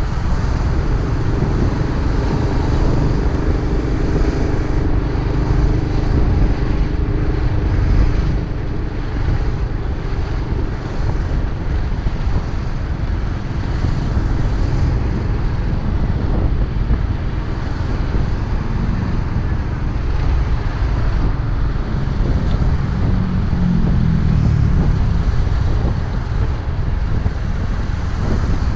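Riding motorcycle, its engine running under heavy wind buffeting on the microphone. The engine's tone stands out in the first several seconds, and about three-quarters of the way in a pitch rises and then falls.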